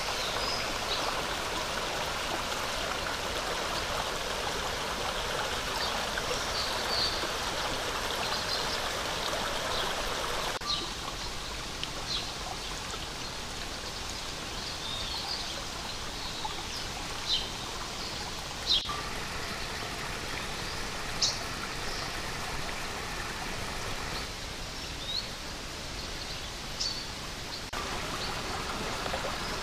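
Small forest stream flowing over stones, a steady rush of water whose level shifts at a few points. Brief high chirps come now and then, a few of them standing out sharply.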